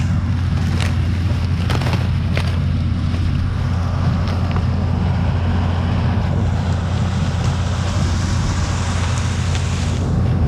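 Footsteps crunching over dry maize stalks and leaves, a few sharp steps in the first couple of seconds, over a steady low rumble from the John Deere tractor working the maize harvest.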